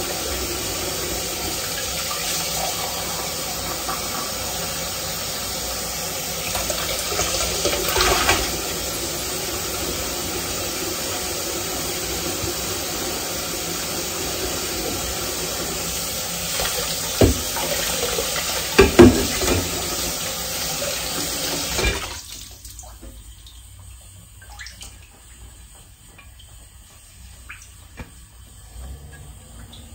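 Kitchen faucet running into the sink during dishwashing, with a few sharp clatters of dishes. The water shuts off suddenly about three-quarters of the way through, leaving only soft scattered clinks.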